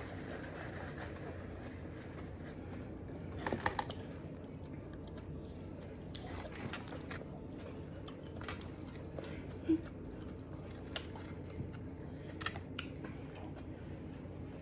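Close-up eating sounds: chewing on a soft boiled onion, with scattered wet mouth clicks and smacks and a short cluster of them about three and a half seconds in.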